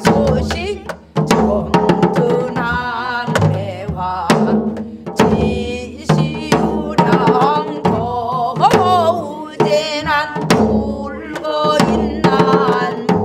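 Voices singing pansori together with heavy vibrato, accompanied by janggu hourglass drums striking a steady jungmori rhythm.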